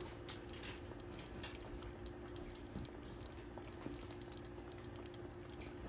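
Thick plantain porridge simmering in a pot, its bubbles bursting now and then with faint soft pops.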